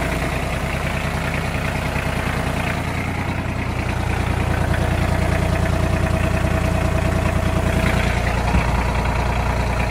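1989 Ford 1520 tractor's three-cylinder diesel engine idling steadily, with a thin steady whine for a few seconds midway.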